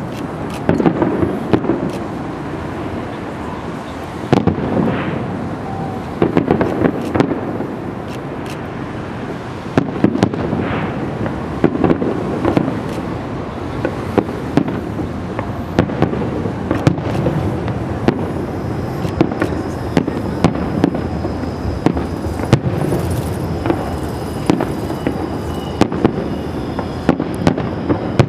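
Fireworks display: aerial shells bursting in a steady run of sharp bangs, some in quick clusters, over a continuous rumble.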